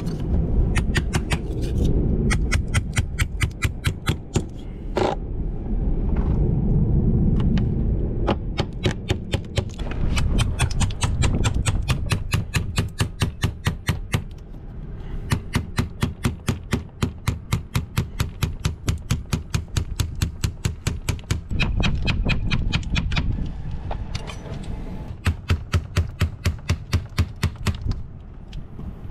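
Small hammer tapping fibreglass wedges and a screwdriver in under an aluminium port-light frame to break its seal from the fibreglass cabin side. The taps come fast, several a second, in runs with short pauses between.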